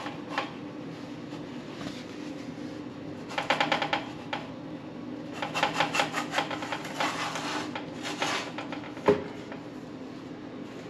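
Metal pizza peel jiggled against a pizza stone and oven rack to slide a pizza off it: two bursts of quick rattling clicks, the first a few seconds in and a longer one after it, then a single sharp knock, over a steady low hum.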